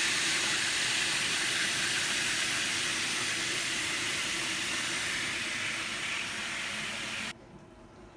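Running bath water, a steady hiss that cuts off abruptly about seven seconds in.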